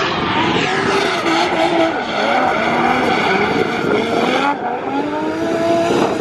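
Drift car engine revving up and down through a slide, its pitch rising and falling repeatedly over the hiss of spinning tyres; the sound changes abruptly about four and a half seconds in.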